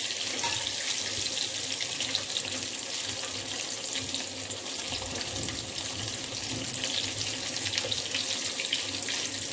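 Chicken drumsticks deep-frying in hot oil: a steady sizzle with fine crackling. This is the late stage of frying, when the bubbling is settling and the chicken is nearly ready to come out.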